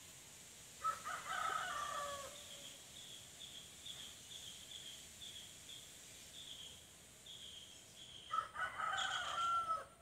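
Two long bird calls about seven seconds apart, with a quick, regular string of short high chirps running between them.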